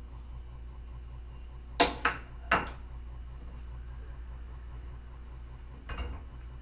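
Four sharp kitchenware clinks in quick succession about two seconds in, then near the end a softer knock as a cast iron pan is gripped through a cloth and shifts on the gas stove's iron grate. A steady low hum runs underneath.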